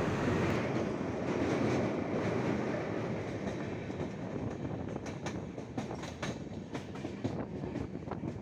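Passenger train running, heard from aboard: a steady rumble of wheels on the track, with irregular clicks of the wheels over rail joints from about halfway through.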